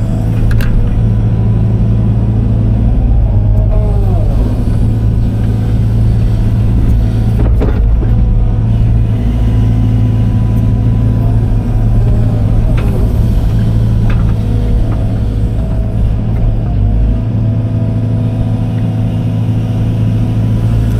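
Case excavator's diesel engine running steadily while the boom and bucket dig, heard from inside the cab. A few clunks are heard over it.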